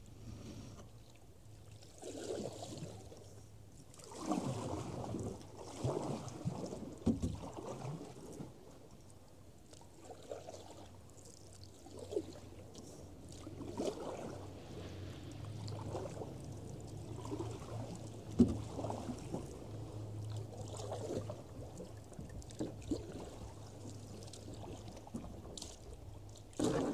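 Canoe being paddled through floodwater: irregular paddle strokes splash and swish water against the hull every second or two.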